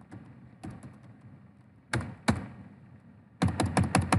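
Computer keyboard keystrokes: a few separate key taps, then a quick run of taps near the end as a password is typed.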